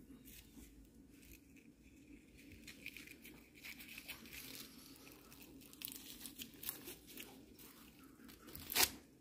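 Fingers rubbing and peeling loose shed skin off a green iguana's cheek and dewlap: faint, irregular dry scratching and crinkling, with one louder sharp crackle near the end.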